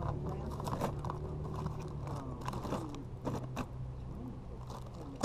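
Loose plastic Lego bricks clattering and a plastic zipper bag crinkling as hands rummage through a plastic storage tote: a string of small clicks and rattles.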